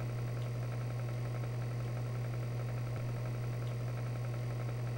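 Tank engine idling: a steady, unchanging low hum.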